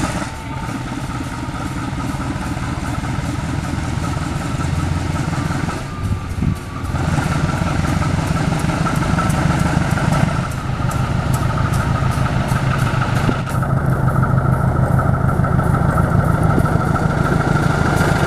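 CC 201 diesel-electric locomotive (GE U18C, V8 diesel) running light as it approaches and passes close by. Its engine runs with a low steady drone and a steady high whine over it, growing louder as it nears.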